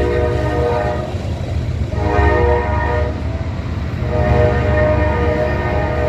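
Diesel freight locomotive's multi-chime air horn sounding in blasts: one that stops about a second in, a short one about two seconds in, then a long one from about four seconds in, the pattern of a grade-crossing signal. A low rumble of the locomotives and train runs under it.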